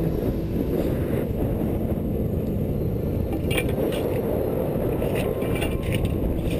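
Wind buffeting a helmet-mounted GoPro's microphone: a steady low rumble. From about halfway through come a few short scrapes and knocks as the helmet camera brushes the rock.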